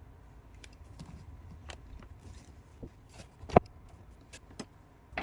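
Scattered small clicks and taps of a pipe fitting and hand tools being handled, with one sharp knock about three and a half seconds in.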